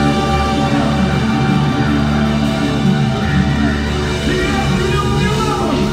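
Live progressive metal band playing, with a held chord ringing from guitar, bass and keyboards under a sung vocal line with sliding pitch.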